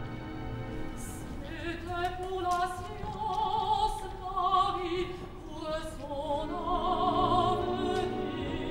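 A woman's operatic voice singing a French line with wide vibrato over sustained orchestral accompaniment. The voice comes in about a second and a half in and sings two phrases, with a short breath between them.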